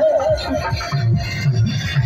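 Loud Bhojpuri song: a sung melody line that ends shortly after the start, followed by heavy bass notes.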